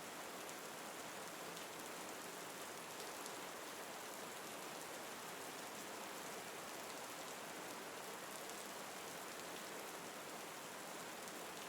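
Faint, steady rain falling, an even wash of sound without breaks.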